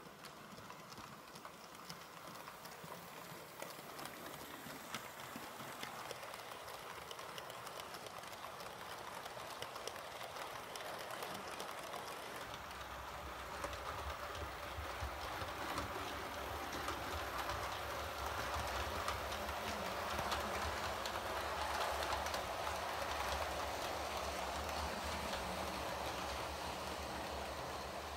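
OO gauge model trains running on the track, with rapid light clicking from the wheels and running gear. A low hum comes in about halfway, and the sound grows louder towards the end.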